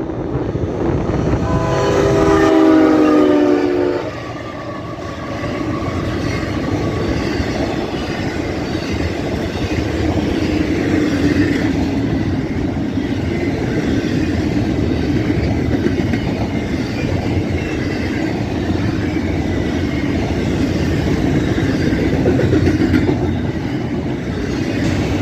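Freight train passing close by: a locomotive air horn sounds a chord for about two and a half seconds near the start, then the steady rumble of the cars' wheels on the rails.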